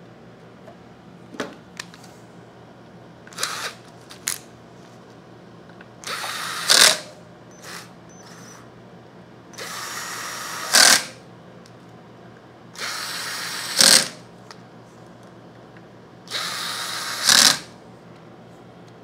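Old DeWalt 7.2-volt cordless screw gun driving screws into a plastic pump diffuser, in four runs of about a second each, each ending in a brief louder spike. A few light clicks and a short blip come before the first run.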